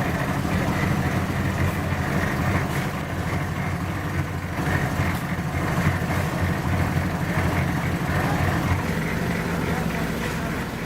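An engine running steadily with a low hum, easing a little about nine seconds in.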